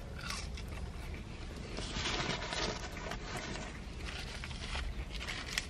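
Faint chewing of a chicken nugget, over the low steady hum of a car's cabin.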